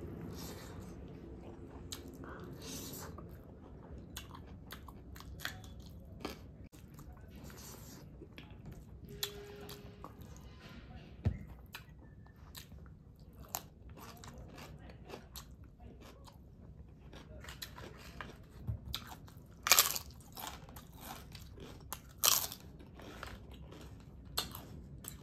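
A person chewing and eating close to the microphone, with soft mouth clicks and smacks throughout and two louder, sharp crunches near the end.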